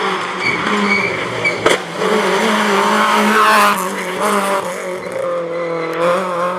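Citroën Saxo rally car running hard at high revs as it comes through a bend and passes close, with tyre noise and a sharp crack about a second and a half in.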